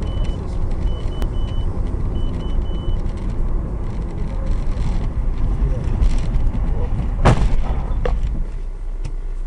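Steady low engine and road rumble inside a moving car, with a repeating run of short high beeps during the first three seconds. About seven seconds in comes a sharp crash as another vehicle collides with the car, followed by a smaller knock.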